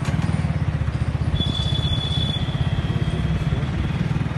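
Vehicle engine running steadily with a fast low pulsing, heard from the moving vehicle itself. A thin, high steady tone sounds over it for about two seconds, starting a second or so in.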